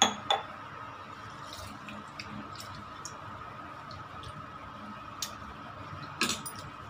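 A hand swishes moong dal and rice in a bowl of water to wash them: a soft wet squishing with scattered small clicks of grains, and a louder cluster of clicks about six seconds in. Two sharp knocks open it as the steel tumbler is handled.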